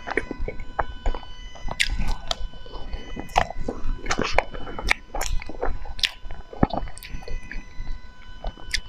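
Close-miked cake eating: irregular wet mouth clicks, smacks and chewing sounds.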